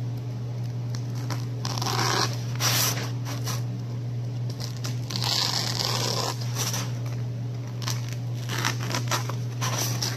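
Utility knife blade drawn through dense black packing foam, a tearing, scratchy cutting sound in several irregular strokes, over a steady low hum.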